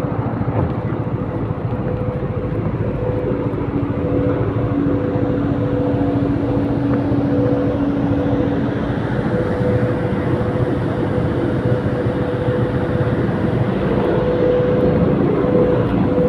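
Moving vehicle running steadily, with constant road and wind noise and a steady hum.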